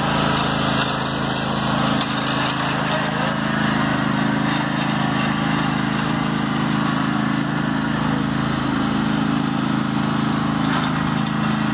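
Husqvarna riding lawn mower's engine running steadily as the mower is driven along, a constant even drone with no change in speed.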